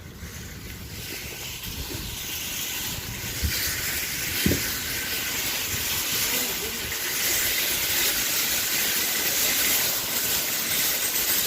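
Loud, steady hissing noise that builds up over several seconds, with a couple of short low thumps in the first half. It is noisy enough to be remarked on just afterwards.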